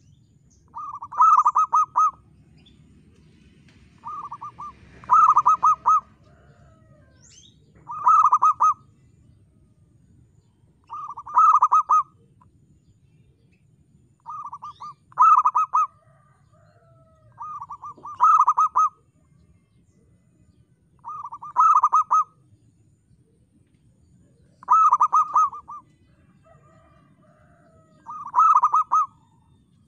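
Zebra dove (perkutut) cooing. Each phrase is a short soft note followed by a louder run of quick rolling coos, and the phrase repeats about every three and a half seconds, nine times.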